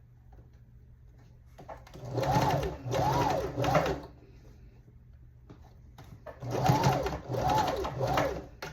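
Janome sewing machine stitching a hair weft onto a wig cap, run in two bursts of about two seconds each. Within each burst the motor speeds up and slows three times, in short surges.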